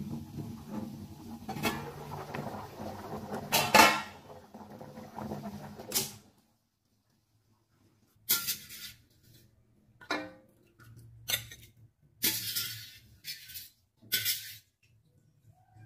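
Metal cookware clatter: a steel wok, its lid and a wire skimmer knocking and scraping. A steady low hum with a few sharp knocks runs for about six seconds. After a brief silence comes a string of short, separate scrapes and clatters.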